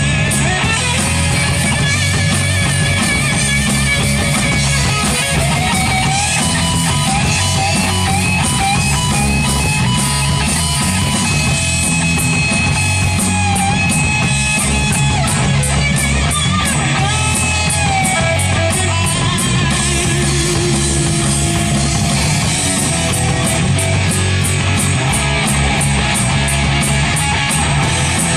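Live rock band playing an instrumental stretch: a distorted electric guitar lead with bending, gliding notes over bass guitar and a drum kit, with cymbals keeping an even beat.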